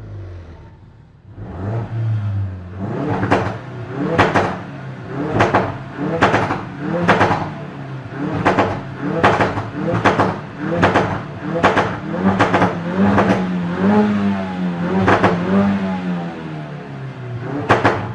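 2016 Ford Focus RS's 2.3-litre turbocharged four-cylinder engine and exhaust being blipped over and over. After a quieter second or so it gives about a dozen quick revs, roughly one a second, each rising and dropping straight back with a sharp crack from the exhaust.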